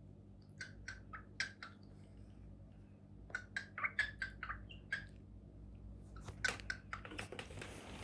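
Cockatiel making quick clicking, drip-like sounds with its beak and mouth, imitating the sound of water. The clicks come in three short runs, with a brief hiss near the end.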